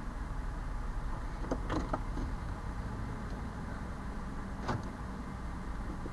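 Cabin sound of a 1999 Ford E150 van with its engine running: a steady low rumble, broken by a few short knocks or clicks about one and a half to two seconds in and once more near the five-second mark.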